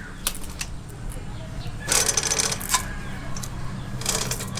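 Motorcycle drive chain being handled after removal, its metal links clinking and rattling in scattered clicks and two short jingling bursts, about two seconds in and near the end.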